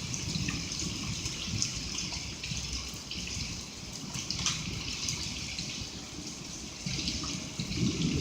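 Steady rain pouring and splashing, with a few sharp ticks scattered through it from small, pea-size hail landing.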